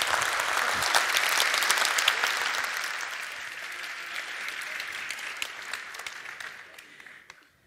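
Audience applauding: many hands clapping together, loud at first and then slowly dying away until it cuts off near the end.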